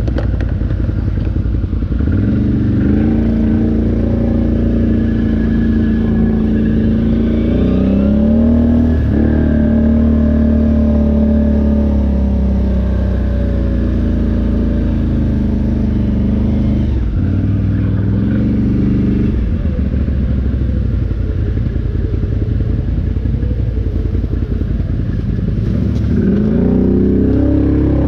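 ATV engine running under way, its pitch climbing and falling as the throttle opens and eases: a rise a couple of seconds in, a dip and climb again around nine seconds, a drop about halfway, and another climb near the end.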